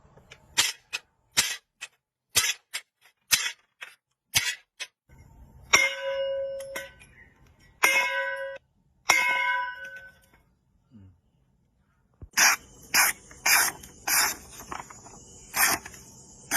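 A hand knife working metal: a run of short, sharp scraping strokes, then three strikes that ring on with a metallic tone for about a second each, then another run of strokes near the end.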